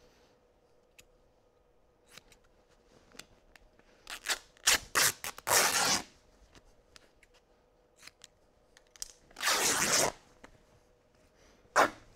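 Scissors cutting up a cloth trouser leg through the seams: a few short snips, then longer cuts through the fabric about four to six seconds in, another long cut around nine seconds in, and one short sharp snip near the end.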